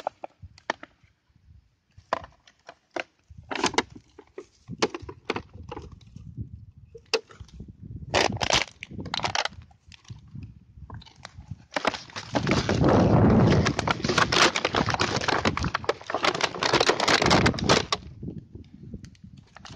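Plastic bottles being crushed underfoot: a series of sharp, separate cracks and crackles. About twelve seconds in comes several seconds of continuous loud crackling and rustling.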